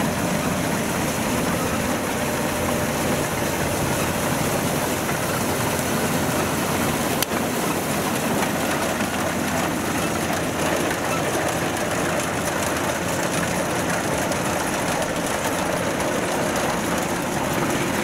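Kubota DC93 combine harvester running steadily while cutting and threshing rice, a continuous engine and machinery din. A single sharp click comes about seven seconds in.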